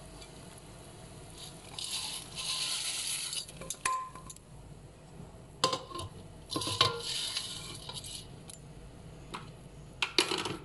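Flattened rice (aval) being tipped into a steel pot of boiling water: two spells of hissing rush as it goes in, and several sharp metallic clinks with a short ring against the steel pot.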